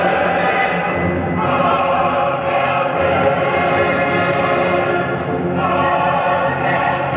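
Choral music with orchestra: a choir singing long held chords, which change about a second in and again near the end.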